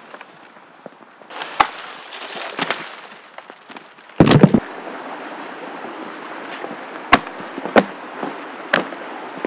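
Sharp, separate cracks like dry twigs snapping, the clearest three spaced about a second apart in the second half, over a steady rushing hiss of flowing stream water. One brief loud burst about four seconds in is the loudest sound.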